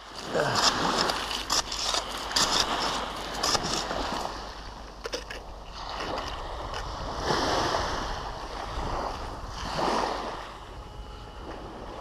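Small waves washing onto a sand and shingle beach, the noise swelling and fading every couple of seconds. In the first few seconds, footsteps crunch on shingle.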